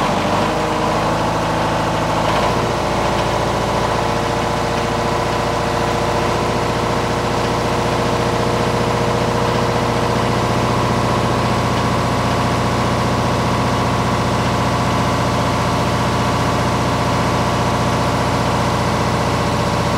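Onan MEP-003A 10 kW military diesel generator running, its engine speed stepping up during the first few seconds as the output is brought up to 60 Hz, then holding steady at governed speed.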